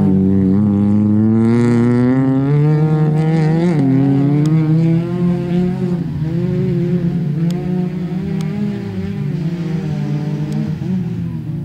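Peugeot 106 rally car's four-cylinder engine revving hard under acceleration. Its pitch climbs through the first few seconds, drops sharply about four seconds in, then rises and falls with the throttle as it grows fainter.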